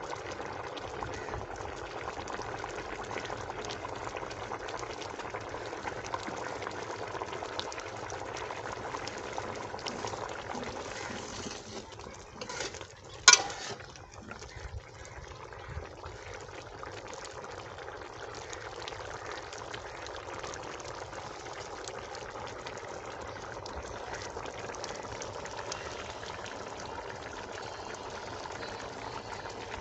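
Chicken karahi gravy bubbling at a steady boil in an aluminium pot over a wood fire. A single sharp knock about halfway through, as a ladle strikes the pot.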